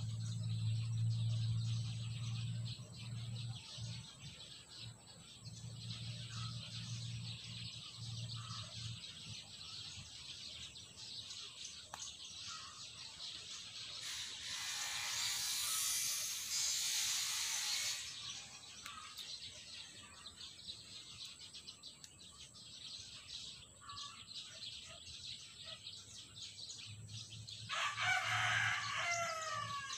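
A rooster crows once near the end, over a low steady hum that also fills the first several seconds. About halfway through there are a few seconds of rushing noise.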